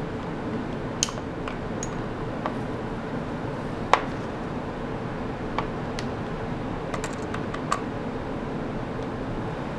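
Scattered light clicks and taps of a screwdriver and hands working on a ThinkPad T61 laptop's plastic underside as its screws are driven back in, over steady background noise.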